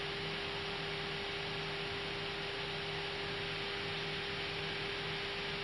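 Steady hiss with a constant hum on the Airbus A320's cockpit radio and intercom audio, heard in a pause between air traffic control transmissions.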